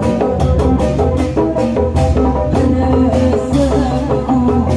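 Sundanese kuda renggong ensemble music: a steady, quick drum beat under an instrumental melody with a strong bass.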